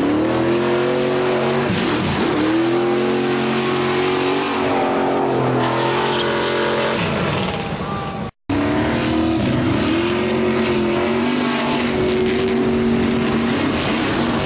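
Car engine sound effect running at high revs, its pitch dropping sharply and climbing back several times as if changing gear. The sound cuts out abruptly for a moment about eight seconds in, then carries on.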